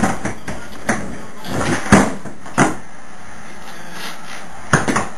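Skateboard wheels rolling steadily across a floor, broken by several sharp clacks of the board hitting the floor, two of them close together near the end.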